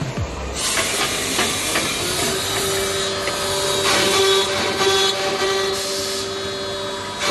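Seven-spindle CNC mortising machine running, with a steady hiss and a steady whine that comes in about two seconds in.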